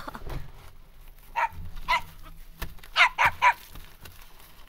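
Cartoon dog barking in short yaps: two single barks, then three quick ones in a row about a second later.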